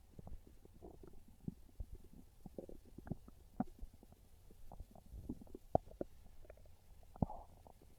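Human stomach gurgling and rumbling: an irregular run of short, soft gurgles and little pops, with two sharper pops near the end. These are hungry stomach growls.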